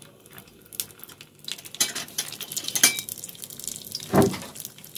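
Cumin seeds sizzling and crackling in hot mustard oil in a small steel tempering ladle, the tadka stage where the oil is hot enough to make the seeds pop. The popping grows busier about a second and a half in, and a short louder knock comes near the end.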